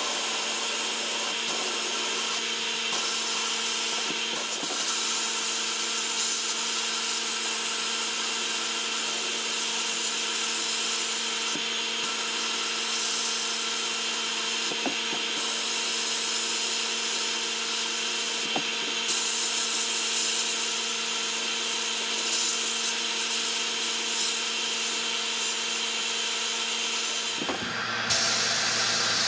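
Sandblasting cabinet nozzle blasting abrasive media onto pressed-steel toy parts, a steady loud hiss with a steady hum underneath, stripping the old finish and rust. The hiss briefly thins a few times, and its tone shifts slightly near the end.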